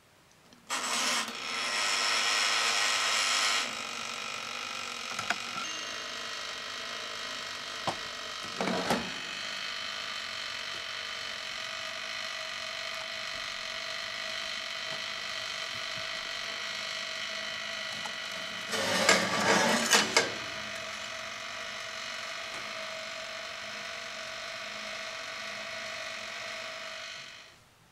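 Toaster oven's dial timer being wound with a loud ratcheting sound about a second in, then running with a steady mechanical whir. A few knocks come near 9 seconds and a louder rattling burst around two-thirds of the way through.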